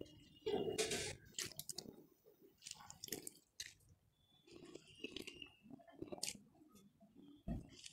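Hands squeezing and kneading washed brinjal slices in a metal bowl of water: irregular wet squelches, splashes and drips as the water is wrung out, the loudest about half a second in.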